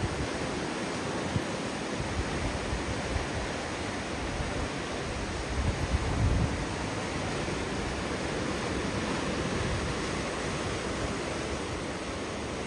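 Steady rush of ocean surf, with a louder low rumble about six seconds in.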